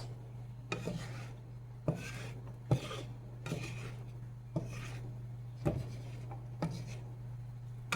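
Big kitchen knife chopping a raw potato on a cutting board: about seven sharp knocks roughly a second apart, with some scraping between cuts, over a steady low hum.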